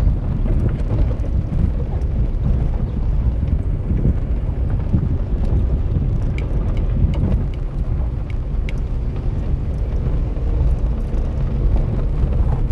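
Vehicle driving slowly along a dirt farm track: a steady low rumble of engine and tyres, with a few small knocks and rattles.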